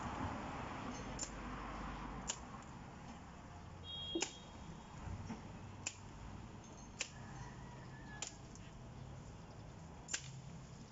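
Machete chopping into moringa branches: about seven sharp, short knocks of the blade biting into the wood, one every second or two.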